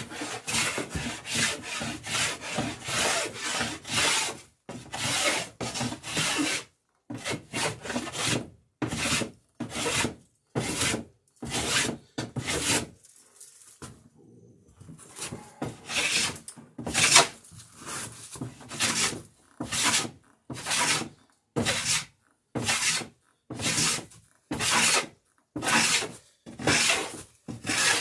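Hand plane cutting a bevel along the edge of a wooden garboard plank in repeated push strokes, each a short scraping hiss of shaving wood. The strokes come quickly at first, stop for about two seconds near the middle, then go on steadily about once a second.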